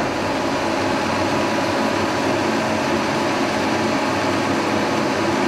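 A 1943 Brown & Sharpe No. 2 Plain milling machine running, its motor and gearing turning the spindle of the horizontal-swung head: a steady mechanical whir with several steady tones.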